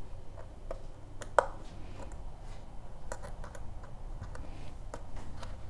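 Scattered light clicks and taps of fingers handling and pressing small paper pieces onto a cardstock treat box, the sharpest click about a second and a half in, over a low steady hum.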